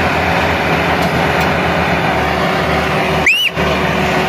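Two Massey Ferguson 385 tractors' four-cylinder diesel engines running hard under full load, hitched in tandem to a loaded sugarcane trolley that is stuck in soft sandy ground. About three seconds in, a brief high chirp rises and falls over the engine noise.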